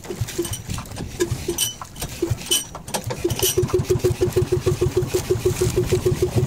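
Small single-cylinder outrigger boat engine starting. It fires a few irregular times, then catches about three seconds in and runs at an even beat of roughly seven firings a second.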